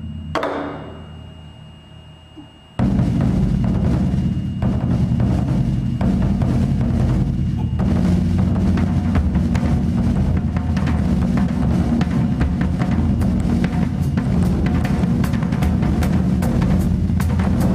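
A big taiko drum and a drum kit playing together. One strike rings and fades, then about three seconds in both come in at once with loud, dense, fast drumming. Sharp cymbal-like hits keep a regular beat near the end.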